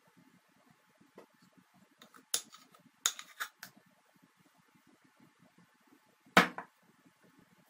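Kitchen utensils and dishes knocking and clinking while cake batter is poured from a bowl into a cake pan: a few separate short knocks, a quick cluster about three seconds in, and the loudest single knock a little after six seconds.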